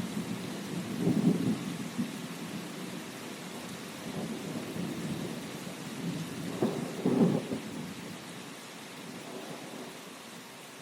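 Thunderstorm: steady rain hiss under rolling thunder, with louder rumbles about a second in and about seven seconds in, the thunder dying away near the end.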